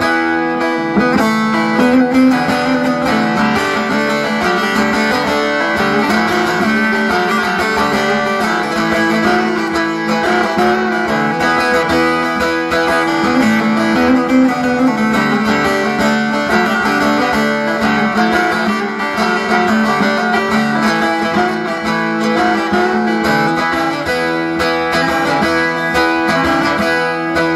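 Long-necked bağlama (saz) played solo, a continuous stream of plucked notes over steady held low notes, as the instrumental introduction to a Turkish folk song.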